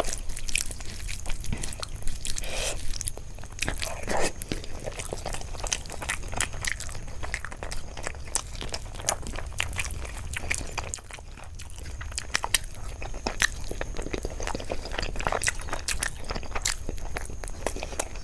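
Close-miked eating sounds of a mouthful of fish curry and rice: wet chewing, lip smacks and tongue clicks in a quick, irregular run, with occasional soft crunches.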